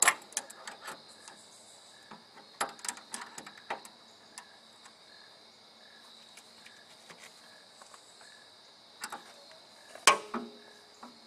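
Crickets or other insects trilling steadily in the background, with scattered handling clicks and knocks and a louder clank about ten seconds in.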